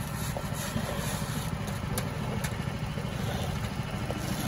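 An engine idling steadily with a fast, even low pulse, and two short clicks about two seconds in, half a second apart.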